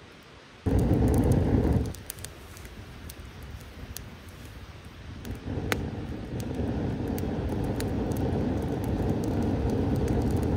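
Small campfire crackling with scattered sharp pops. A short, loud rush of air comes about a second in, and a longer steady rush starts about halfway through and builds.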